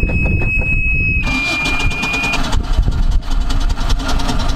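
Sea Ray speedboat's engine cranking and starting, with the dashboard warning buzzer sounding one steady high tone that stops about two and a half seconds in. The engine then runs on.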